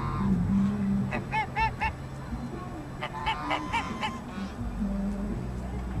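Domestic geese honking: a quick run of about four short calls, then after a pause a second run of five or six, over a low steady rumble.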